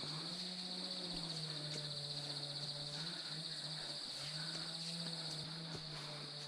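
Insects trilling steadily in the forest, a high, fast-pulsing shrill that does not let up, with a low wavering hum underneath and a few faint ticks.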